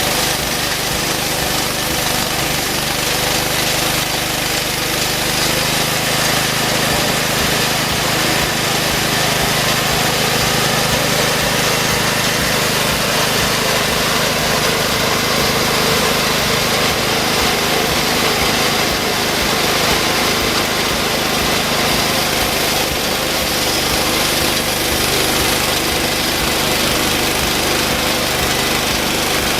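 Homemade band sawmill running steadily, its engine driving the band blade through a hard post oak log.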